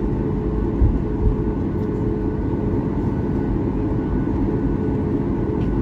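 Cabin noise of a Boeing 737 MAX 8-200 taxiing slowly: a steady low rumble of the CFM LEAP-1B engines near idle and the rolling landing gear, with faint steady hums. Two brief low bumps come about a second in.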